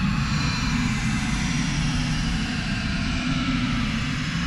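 Dark space-ambient electronic drone: a steady, dense rumble with a layer of hiss above it and no beat or melody, close to the sound of a distant aircraft engine.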